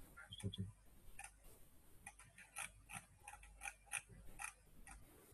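Faint, irregular clicking, about three or four clicks a second: a computer mouse's scroll wheel being turned notch by notch to scroll a document.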